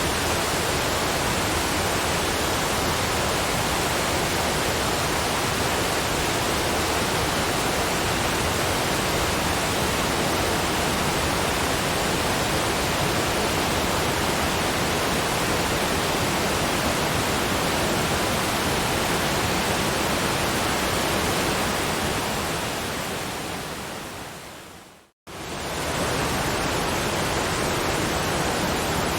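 Waterfall's steady rushing water. About three-quarters of the way through it fades out to silence for a moment, then comes back suddenly at full level, as at a loop restart.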